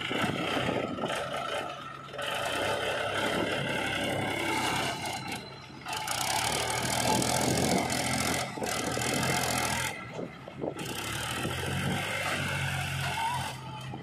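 Powertrac 434 DS tractor's diesel engine running under load as the tractor and trolley are manoeuvred, its note surging and easing off several times, with a JCB 3DX backhoe loader's engine working alongside.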